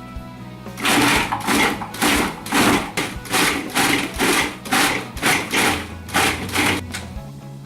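Blender run in short pulses, about two a second, chopping banana, apple, dates and blueberries into a chunky sauce.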